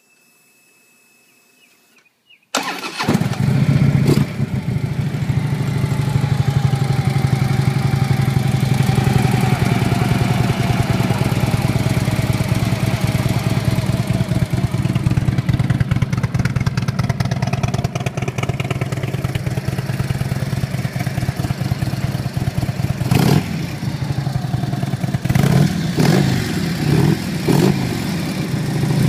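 2012 Harley-Davidson CVO Road Glide's V-twin engine starting about two and a half seconds in, then idling steadily. Near the end it is given a few quick revs.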